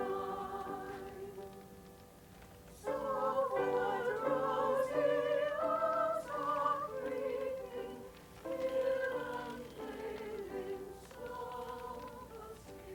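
Background music of classical singing, a voice with strong vibrato. One phrase fades out, then a louder phrase comes in about three seconds in and carries on through softer phrases.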